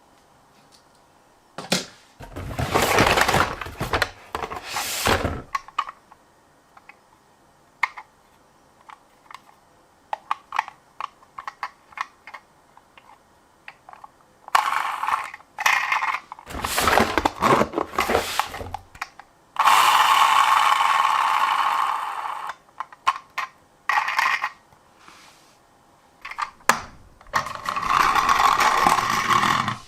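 Miniature toy cars clattering and clinking as they are handled and run along a slope, in irregular bursts of rattling and clicks, with a steadier stretch of rattling noise about twenty seconds in.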